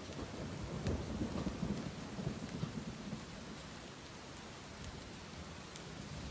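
Steady rain, with scattered drops ticking sharply on a nearby surface. A low roll of thunder rumbles through the first half and fades out about three seconds in.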